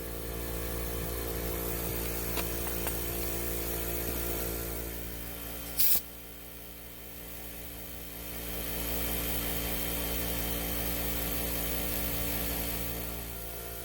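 Steady mechanical hum of a machine running, with a short, loud hiss about six seconds in. The hum then drops to a lower level for a couple of seconds before picking up again.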